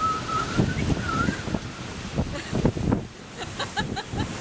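Gusting wind buffeting the microphone, with a brief wavering high tone in the first second or so and a few short high-pitched notes about three and a half seconds in.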